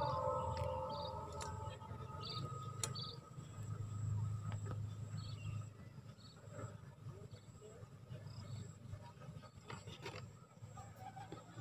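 Faint outdoor ambience: scattered short high chirps over a low steady rumble, with a few light clicks.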